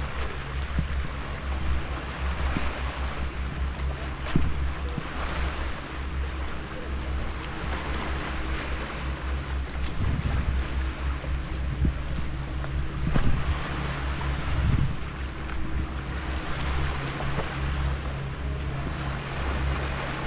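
Sea waves washing onto a pebble beach, the hiss swelling and fading every few seconds, with wind buffeting the microphone. A few sharp knocks of pebbles underfoot.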